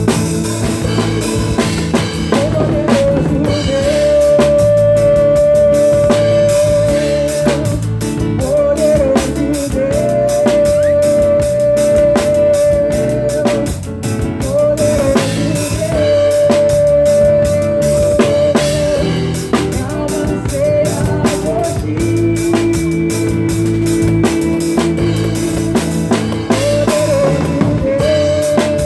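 Live pagode band music: a drum kit keeps a steady beat with kick drum, snare and rimshots under a melody of long held notes that slide into pitch.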